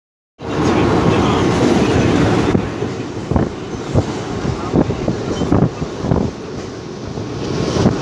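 Train running over a bridge, heard from on board: a dense rumble of wheels on the track starts about half a second in and is loudest for the first couple of seconds. After that it is quieter, with sharp knocks every half second or so as the wheels strike rail joints.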